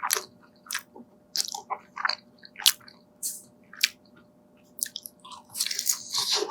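Close-miked crunching and chewing of deep-fried dumplings: short crisp crunches about twice a second, then a longer, denser spell of crunching near the end.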